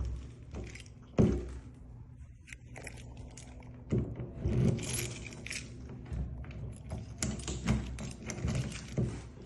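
Metal keys jangling, with a run of small clicks and knocks from door lock cylinders being handled during rekeying. One sharper knock comes about a second in.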